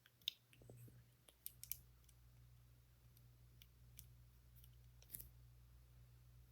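Plastic Lego pieces clicking and tapping as they are handled and pressed together: a few sharp clicks, the loudest near the start, over a faint steady hum.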